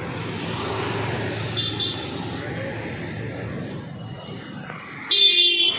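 Road traffic passing, with engines and tyres making a steady noise. Two faint short horn beeps come about a second and a half in, and a loud, short buzzy horn blast near the end.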